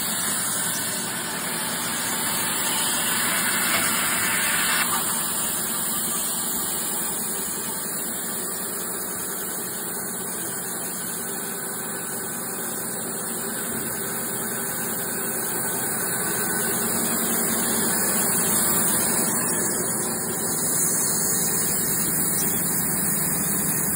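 Wirex CZP-2 twin band-saw cant mill running: its electric motors and band blades make a steady, continuous mechanical noise.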